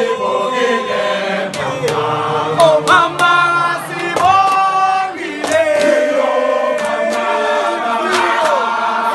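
A group of schoolboys singing a gwijo, a South African group chant, together in unison, with a few sharp claps.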